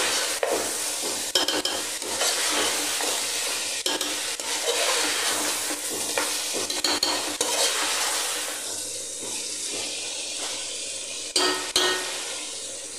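Chicken pieces in masala sizzling in hot oil in a metal pot while a spoon stirs them through, with a few sharp clinks of the spoon against the pot, the loudest near the end. This is the chicken being bhuna-fried in its spices.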